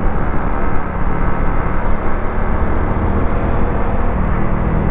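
Motorcycle riding at speed: a steady, dense rush of engine and road noise.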